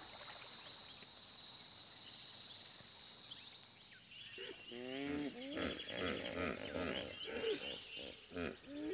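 A steady high insect buzz that fades out about four seconds in, followed by a series of hippopotamus calls: pitched honks, some rising, repeated in quick succession, with bird chirps above them.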